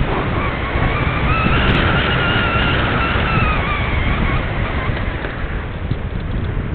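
Airflow rushing over a Parkzone Radian Pro's onboard wing camera, with the whine of the glider's electric motor and propeller rising in pitch and then falling away as the throttle changes.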